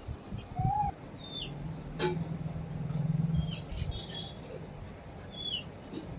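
Scattered short bird chirps, each a quick falling note. A steady low hum runs from about one and a half to nearly four seconds in, and a single sharp click comes about two seconds in.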